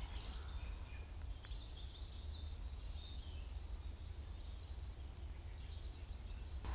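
Faint outdoor background: a steady low rumble with a few scattered, faint bird chirps.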